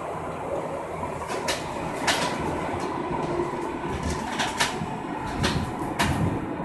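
LUAS tram running along the track, heard from inside the tram: a steady running noise with a faint whine and several sharp clicks scattered through it.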